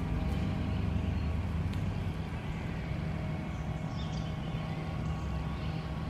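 A steady low mechanical hum, like an engine running at a constant speed, under faint outdoor background noise.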